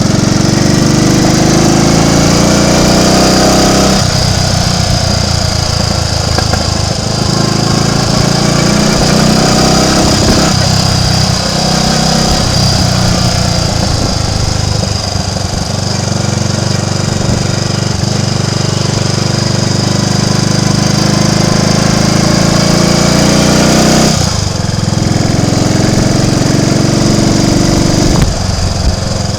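Triumph Tiger Cub's single-cylinder four-stroke engine running under way, its pitch rising and falling with throttle and gear changes, with several sudden shifts in the engine note. The bike has an intermittent misfire that the owner puts down to dirt in the carburettor.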